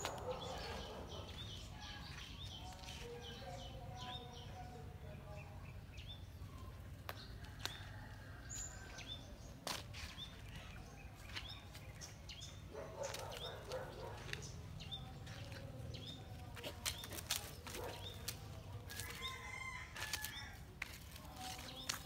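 Small birds chirping, short high chirps repeated about every half second, with scattered rustles and scratches, like paws scuffing dry leaves and sand.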